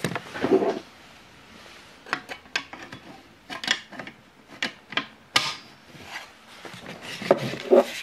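A series of irregularly spaced sharp clicks and light knocks, a dozen or so, starting about two seconds in.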